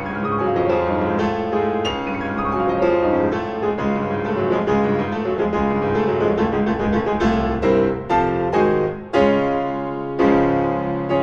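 Solo piano music, notes and chords struck in a flowing line, with several louder chords in the second half.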